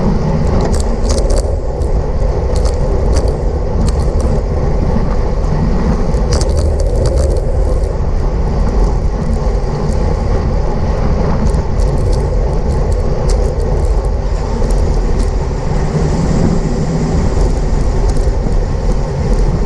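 Steady wind noise buffeting the microphone of a camera on a racing bicycle riding at speed, with scattered light ticks.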